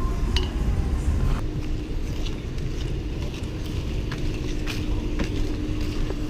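Low steady rumble like a motor vehicle running nearby, with a steady hum setting in about a second and a half in and a few light clicks.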